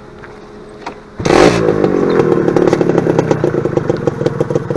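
Motorcycle engine starting about a second in: it catches with a loud burst, the pitch drops, and it settles into a steady idle.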